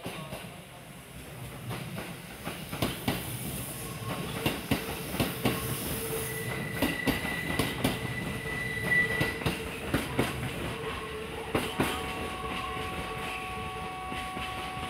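Kintetsu limited-express train running past the platform: its wheels clack unevenly over rail joints and points, with a thin high wheel squeal in the middle and steadier ringing tones near the end.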